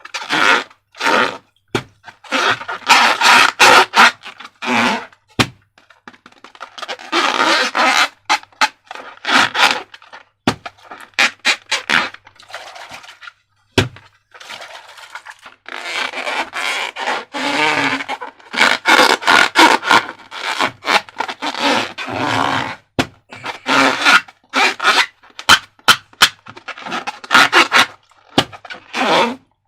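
Slime being squeezed and squished by hand, making sticky squelches and crackling clicks in irregular bursts.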